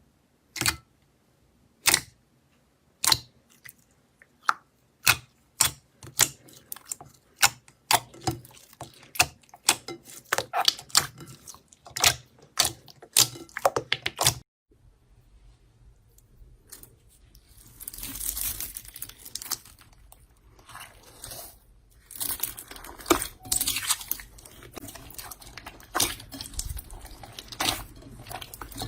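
Slime being handled close to the microphone: a run of sharp pops and crackles that come faster and faster, then, after a clean cut about halfway through, softer squishing and crinkling handling noise with occasional sharper clicks.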